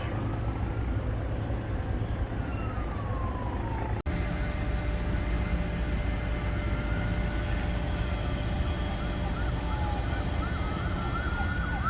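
Emergency vehicle sirens wailing in slow rising and falling sweeps, switching to a rapid yelp about ten seconds in, over a steady low rumble. The sound cuts out for an instant about four seconds in.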